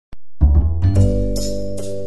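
Background music with a steady beat: a deep bass note under held chords, with light percussion hits about every half second.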